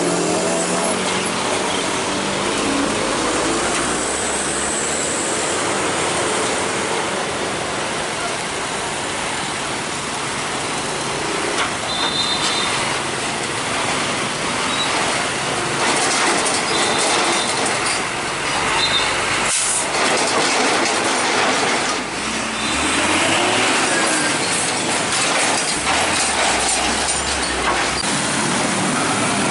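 Road traffic crossing railway tracks: truck engines and motorcycles running as they drive over the level crossing, in a steady mix of engine and tyre noise.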